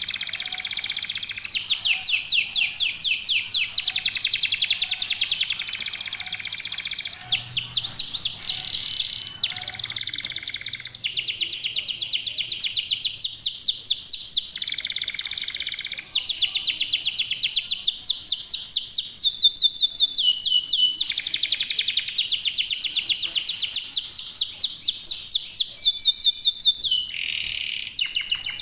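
Domestic canaries, local Indonesian birds, singing continuously in long rapid trills and rolling phrases that change every few seconds.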